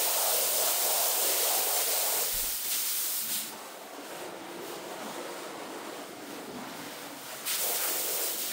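Hose nozzle spraying a hissing jet of water onto a soaked, foamy rug. The spray stops about three and a half seconds in, leaving a quieter stretch while the wet rug is handled, and starts again near the end.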